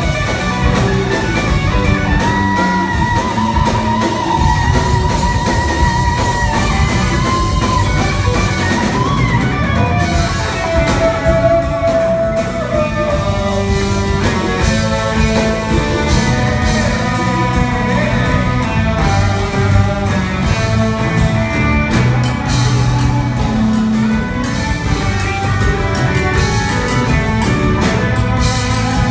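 Live jazz-fusion band playing an instrumental passage: a guitar lead with long held notes over drum kit and bass.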